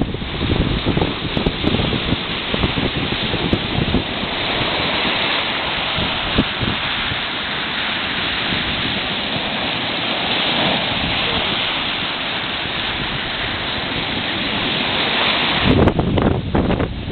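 Sea surf washing on the shore as a continuous rushing hiss, with wind buffeting the microphone in gusts, heaviest in the first few seconds and again near the end.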